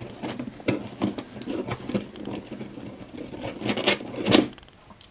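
A stiff cardboard box being worked open by hand: a busy run of scraping, rustling and sharp cracks from the tight flaps, with the loudest cracks about four seconds in.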